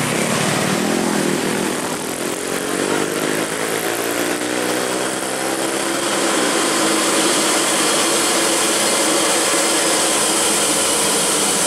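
Hino 500 truck's diesel engine laboring up a steep climb: its note rises over the first few seconds, dips briefly about six seconds in, then holds steady. Motorcycles pass early on.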